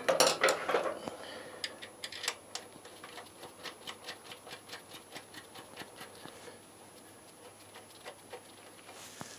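Light metallic clinks and clicks as the mounting bolt of a motorcycle rear brake master cylinder is refitted by hand. The clicks run quickly at about three a second and die away about two-thirds of the way through.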